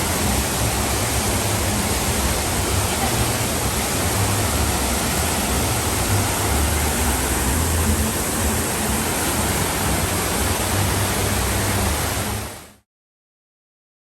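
Steady rush of water from the Bellagio fountain's jets, a dense even hiss that fades out quickly near the end.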